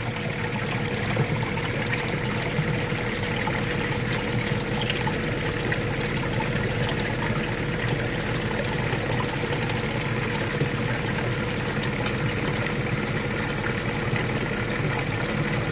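Water running steadily over a vibrating gold sluice's dimpled matting and riffles, over a constant hum from the sluice's vibrator and machinery.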